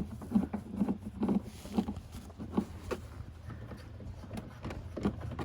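Irregular light clicks and knocks of a hand tool turning a fastener in a car's tail-light housing, several in the first three seconds and sparser after, over a low steady hum.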